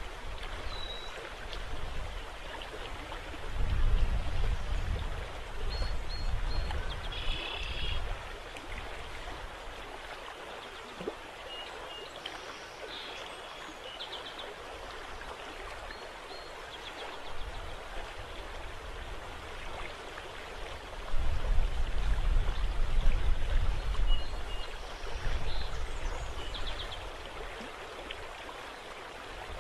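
Steady rippling and lapping of river water. Gusts of wind rumble on the microphone, loudest about 4 s in and again about 21 to 26 s in. Small birds give short chirps now and then.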